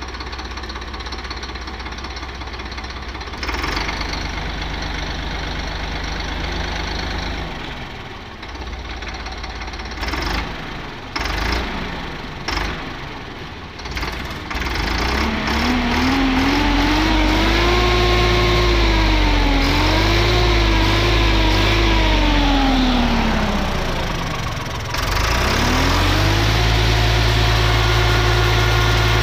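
Swaraj 963 FE tractor's diesel engine idling steadily, with a few sharp clicks about ten seconds in. It is then revved up and down several times and held at raised revs near the end.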